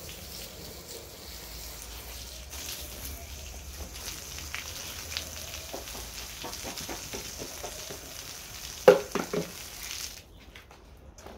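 Garden hose spraying water over a dog's coat, a steady hiss that cuts off suddenly near the end as the tap is turned off. Just before it stops there is a short, loud sound of a few quick pulses.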